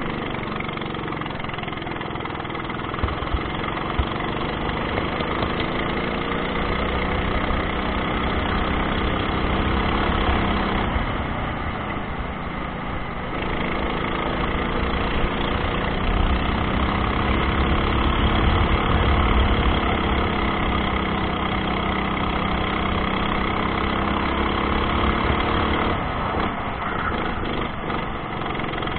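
Go-kart engine running at full throttle through a lap, its pitch climbing along the straights and falling twice where the driver lifts for corners, over a low rumble of wind and tyres on the onboard microphone.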